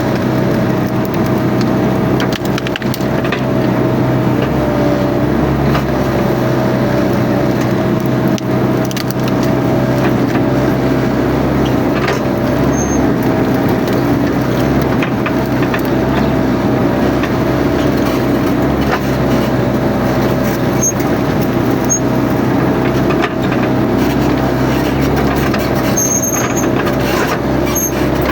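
Mini excavator engine running steadily under work with a constant whine, while woody brush and branches crack and snap as it is torn out and crushed.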